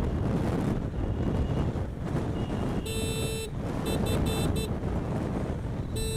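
Wind buffeting the microphone and road rumble from a moving electric scooter, with a vehicle horn sounding: one long honk about three seconds in, four quick short beeps a second later, and another short honk at the very end.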